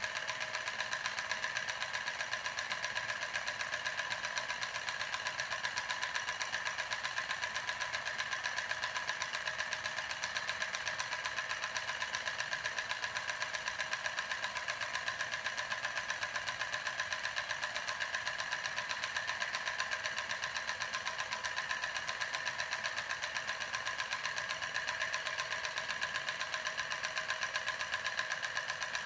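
Small homemade steam engine running: a drink-can boiler over a candle drives a syringe piston that turns a CD flywheel. It makes a fast, even mechanical ticking with a steady high tone under it.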